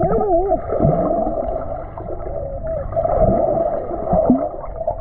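Muffled underwater sound in a swimming pool, heard through a submerged camera: a dense wash of water with wavering, gliding tones, strongest just at the start and again near the end.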